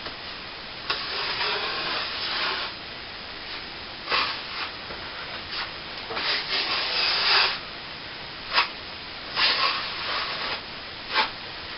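Plastering trowel scraping across a wetted CSR Cornice Cement patch on a plasterboard ceiling as it is polished smooth: irregular strokes, some brief, some drawn out over a second or more.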